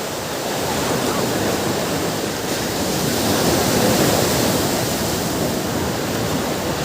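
Ocean surf washing on a beach: a steady rush of water noise that swells to a peak about halfway through and then eases off.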